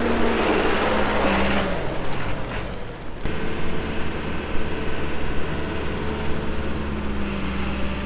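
Backhoe's diesel engine running steadily, with a hiss of noise over it for the first couple of seconds. About three seconds in the sound changes abruptly to a smoother, steadier engine hum.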